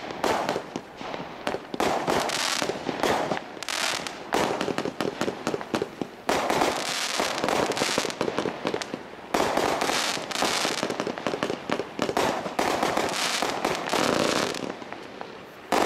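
Diamond Fireworks Imperial 142-shot barrage cake firing: a rapid, continuous run of launch shots and bursts with crackling, easing briefly near the end before another loud burst.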